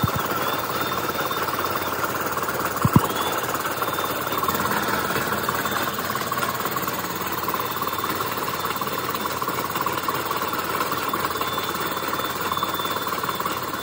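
Workshop machinery running steadily, with a faint high whine that comes and goes and two sharp knocks, the louder one about three seconds in.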